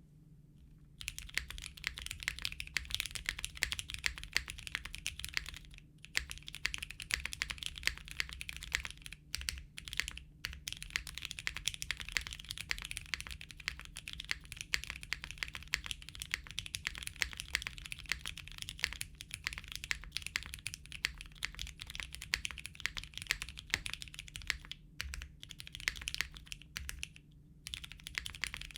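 Continuous fast typing on a custom mechanical keyboard: retooled Cherry MX Brown tactile switches lubed with GHV4, filmed, with 62g long springs, in an aluminium plate, under GMK keycaps. It starts about a second in and pauses briefly a few times.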